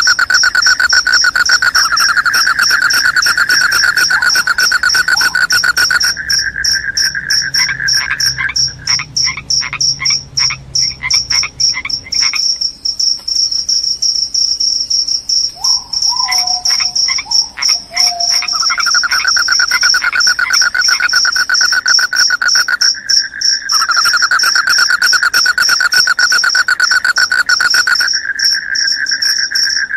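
Crickets chirping loudly: a high, unbroken trill over a lower pulsing trill that drops out for long stretches and comes back.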